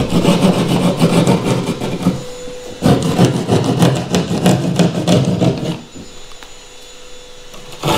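Hand drywall saw cutting a hole in ceiling drywall with quick rasping back-and-forth strokes. The strokes come in two runs with a short pause a little after 2 s, then stop about 6 s in.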